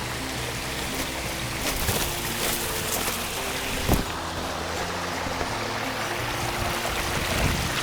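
Background music with sustained low notes, over the steady rush of a mountain stream's flowing water, with one sharp knock about four seconds in.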